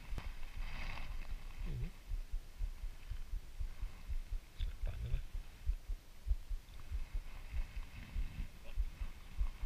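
Low, irregular thuds and rumble on the camera's microphone, from wind and handling, while a fish is unhooked and held up. A faint voice is heard briefly about a second in.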